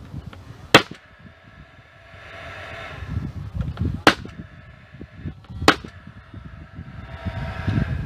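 Paslode 16-gauge angled finish nailer firing three nails into the wooden roof boards: a sharp crack a little under a second in, then two more a second and a half apart, with a whir between the shots.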